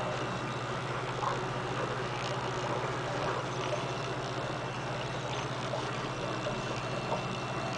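Steady low hum with an even hiss of background room noise, with a few faint soft rustles as a picture-book page is turned.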